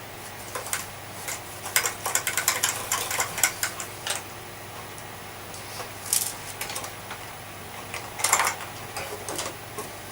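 Clicks and rattles of vacuum cleaner parts being handled, with a quick run of sharp clicks about two seconds in and two short scraping rubs later on.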